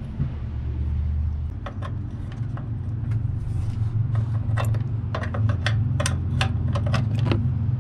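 Sharp metallic clicks and taps of a 7/16 flare-nut wrench working the brake line's flare nut loose from the front brake hose. The clicks come irregularly from about two seconds in and grow more frequent in the second half, over a steady low hum.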